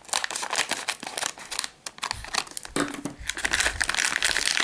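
Plastic packaging bag crinkling as it is cut open with scissors and then handled, a dense rustle of quick clicks, with a few low bumps about halfway through.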